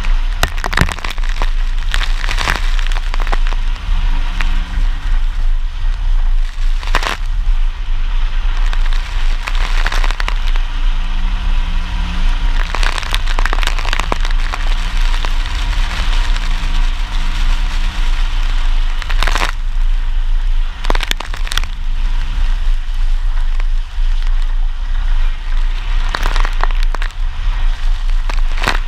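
Pickup truck driving through mud on a wet dirt road: a deep rumble with the engine note heard at times, and many sharp hits of mud and water thrown against the body and wheel wells.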